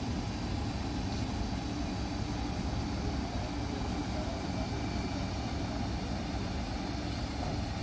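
Steady engine noise: a low rumble with a thin, high, even whine held over it, unchanging throughout.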